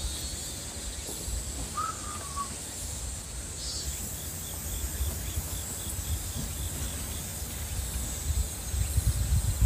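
Lakeside outdoor ambience: a low rumble of wind on the microphone that grows louder near the end, steady high-pitched insect buzzing, and a single short falling bird call about two seconds in, followed by a run of regular high ticks.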